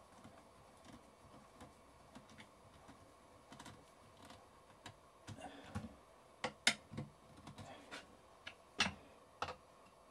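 Scattered light clicks and knocks of tools and parts being handled on a compressor's plastic and metal housing during reassembly, sparse at first and then busier, with a few sharper knocks in the second half.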